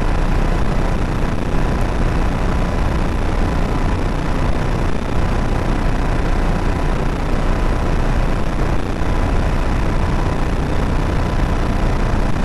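Steady noise on the stream's audio feed behind a holding card: an unbroken rushing hiss, heaviest in the low end, with a faint steady high tone running through it.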